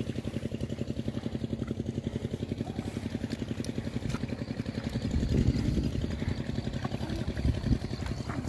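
A small engine running steadily with an even, fast put-put pulse of about a dozen beats a second, growing louder a little past halfway and briefly again near the end.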